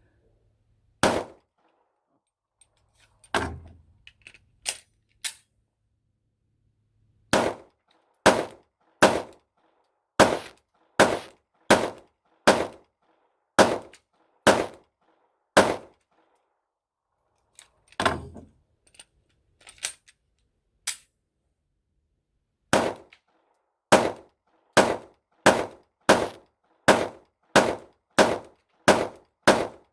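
Gunshots from a semi-automatic firearm fired in steady strings of single shots, roughly one a second in the middle and a little faster near the end, with a few separate, fainter shots between.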